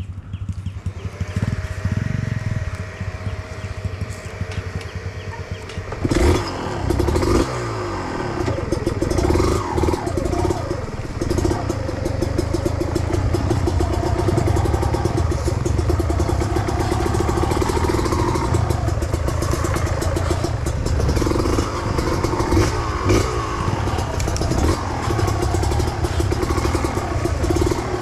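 Trail motorcycle engine running. It is quieter for about the first six seconds, then loud, with the revs repeatedly rising and falling.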